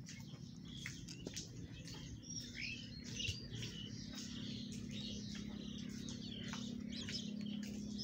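Koel chick giving rapid, high-pitched begging chirps as it is offered food, many short calls in quick succession, some rising in pitch. A low steady hum underlies them.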